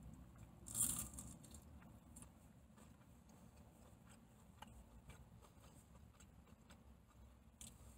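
Mostly near silence, with one short, soft crunch about a second in as a spicy chicken McNugget is bitten into, then only a few faint ticks.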